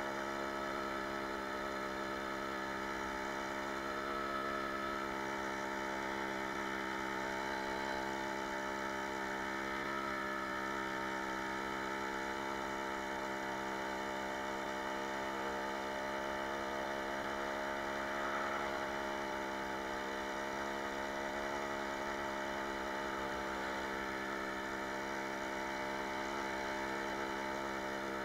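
Jawa 20 Pionýr moped's 50 cc single-cylinder two-stroke engine running at a steady, nearly constant pitch while cruising.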